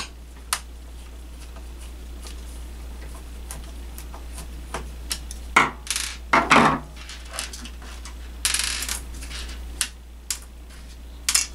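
Scattered clicks, taps and scrapes of a small screwdriver and the plastic chassis of a first-generation Bose Wave CD radio being handled on a wooden desk, with a cluster of louder knocks about six seconds in. A steady low hum runs underneath.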